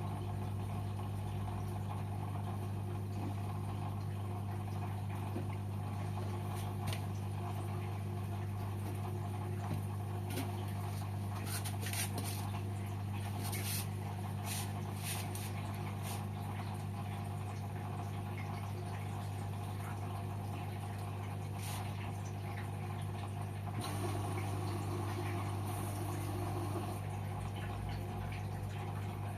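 LG washing machine running a Synthetic 30 cycle: a steady low hum with water sounds, a run of sharp clicks about halfway through, and a higher whine joining for a few seconds near the end.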